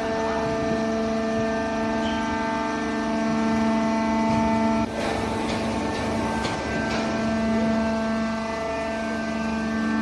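Hydraulic horizontal cardboard baler with conveyor feed running: a steady pitched machine whine that breaks off about halfway into a rougher rushing noise with a few sharp clicks and knocks, then the whine returns near the end.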